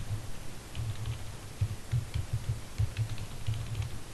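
Computer keyboard typing: irregular keystrokes, several a second, each a dull thump with a faint click.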